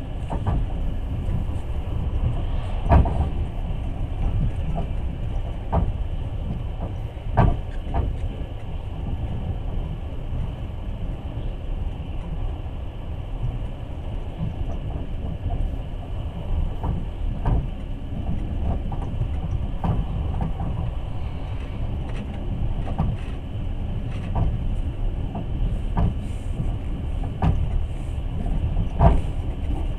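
Passenger train running along the track, heard from inside the carriage: a steady low rumble with occasional sharp knocks a few seconds apart.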